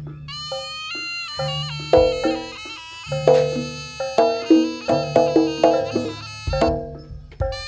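Javanese barongan gamelan music: a reedy terompet (shawm) melody that bends and glides between notes over repeating struck gong-chime notes, with deep held gong tones underneath.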